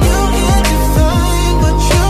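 Background music with a steady beat, deep bass and a melody line.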